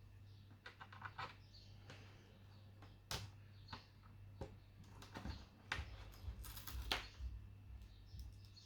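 Irregular light clicks and knocks of hands handling an HP 255 G5 laptop's plastic case and parts, over a steady low hum.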